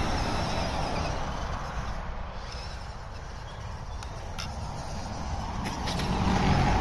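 FTX Ravine RC rock crawler driving over dirt, its small electric motor and gears whirring along with the tyres crunching on the ground, with a few light ticks. It dips a little in the middle and gets louder near the end as the truck climbs the bank.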